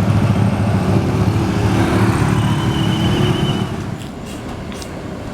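Large tour bus passing close, its diesel engine running with a loud low rumble that fades about four seconds in.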